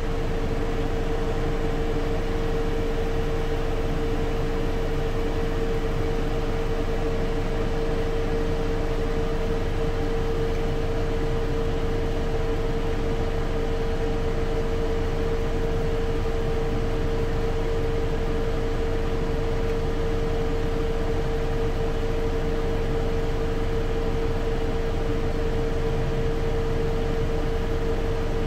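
Steady machine drone, an even rushing noise with one constant mid-pitched hum in it, unchanging in level.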